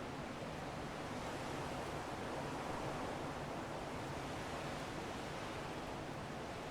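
Strong wind blowing in a steady rushing noise that swells slightly a couple of seconds in, with no gusts breaking off or other sounds.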